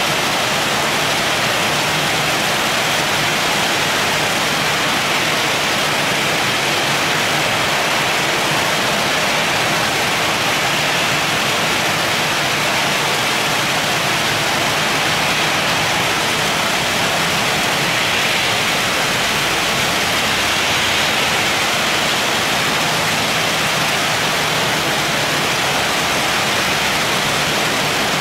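Very heavy rain falling steadily, a dense, even hiss with no break.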